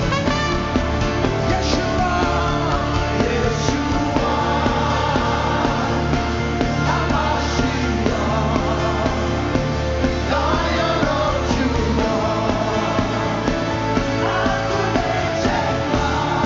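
Live gospel worship music with a band and singing, a steady bass line under bending vocal lines.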